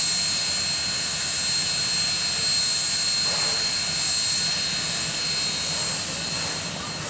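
Union Pacific 844, a 4-8-4 steam locomotive, standing with steam up, giving off a steady hiss of steam with a constant high whine over it.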